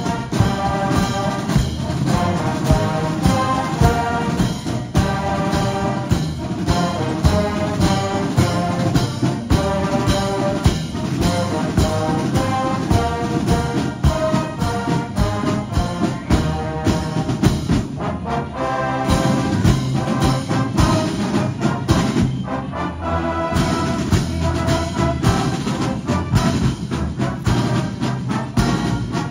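A large all-brass-and-drums military marching band playing a march while marching, with massed brass over a steady drum beat.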